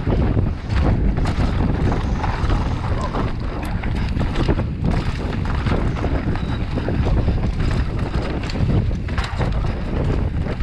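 Wind rushing over the action camera's microphone as a mountain bike descends a dry dirt trail, with a constant rumble from the tyres and frequent sharp knocks and rattles from the bike over bumps and stones.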